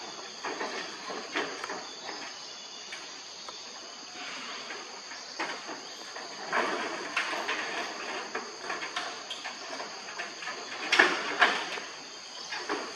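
Steady high-pitched insect chorus, with irregular short rustling and scraping noises over it, the loudest a pair about eleven seconds in.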